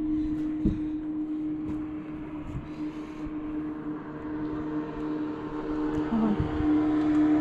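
A steady mechanical hum at one pitch, growing louder over the last couple of seconds, with a light knock about a second in.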